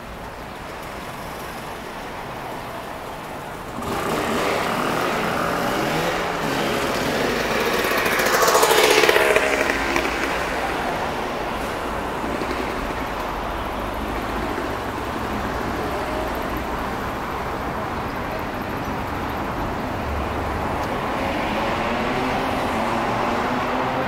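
Street traffic: cars driving past, the noise rising about four seconds in, with the loudest car passing about nine seconds in.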